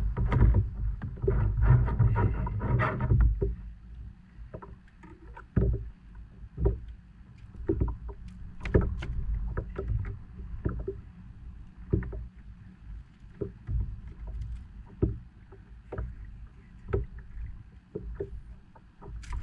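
Wind and water noise aboard a fishing kayak, louder and rumbling for the first three seconds. Scattered sharp knocks and clicks of handling run through it.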